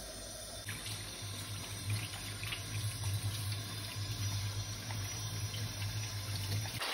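Pieces of raw chicken thigh frying in oil in a non-stick pan: a steady sizzle with a low hum under it.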